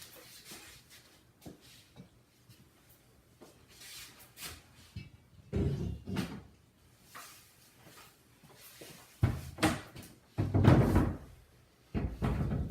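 Barn door and its hardware being handled: scattered light knocks and clunks, with a few heavier wooden thuds in the last third.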